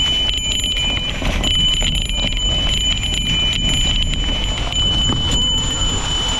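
A bell on a mountain bike ringing on and on as the bike rolls over rough dirt singletrack. Its steady ringing sits over a low rumble of tyres and trail knocks, and stops briefly about a second in.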